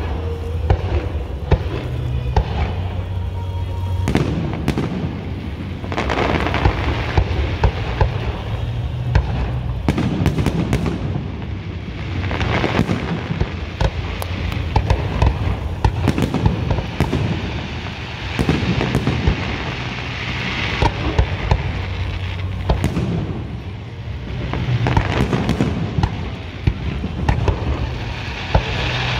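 Grucci professional aerial fireworks display: a continuous barrage of shells bursting, with many sharp bangs over constant crackling, thicker in several dense stretches.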